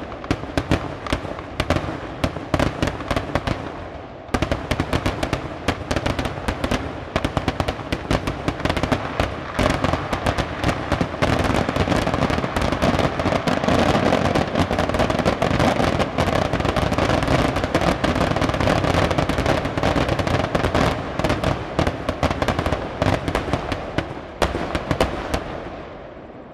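A dense barrage of firecrackers bursting in rapid, overlapping succession, a near-continuous crackle of bangs. It thins briefly about four seconds in, then fades out near the end.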